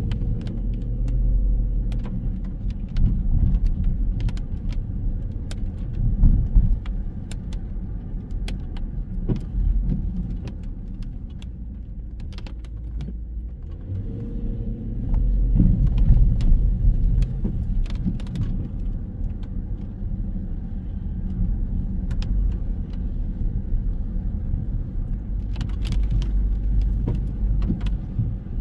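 Road traffic: a low rumble of cars that swells and fades several times, with scattered sharp ticks throughout.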